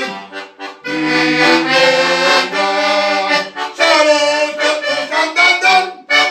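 Organetto, an Italian diatonic button accordion, playing an instrumental folk tune. It breaks off briefly about half a second in, then plays on.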